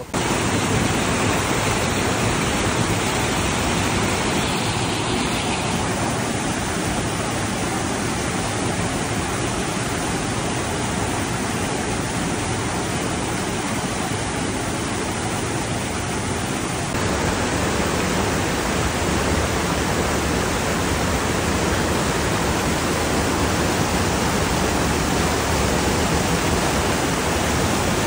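Fast-flowing stream rushing over boulders below a waterfall: a steady, even wash of water noise, its tone shifting slightly about six and seventeen seconds in.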